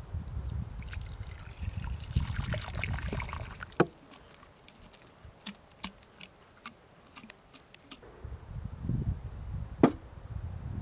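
Chunks of home-canned beef and broth poured from a glass jar into a wooden bowl: liquid trickling and sloshing, with small wet clicks, and one sharp knock near the end.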